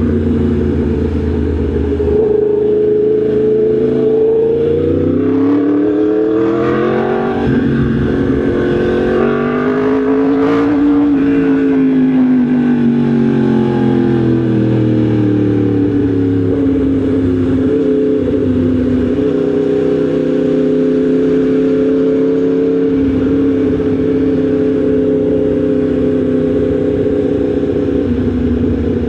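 Yamaha MT-10 SP's crossplane inline-four engine running under way. Its pitch rises as it accelerates to a peak about ten seconds in, then eases back down and holds steady.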